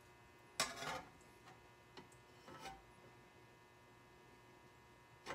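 A metal spatula clanks once against a cast iron skillet about half a second in, followed by a few faint knocks. A low, steady electrical hum runs underneath.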